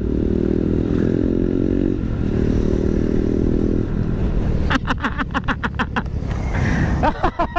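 Motorcycle engine running as it is ridden, with a steady engine note for about four seconds that gives way to a rapid, even pulsing just before five seconds in.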